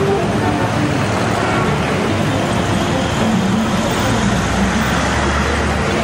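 Steady city street traffic noise: vehicles passing, with a low hum about four seconds in.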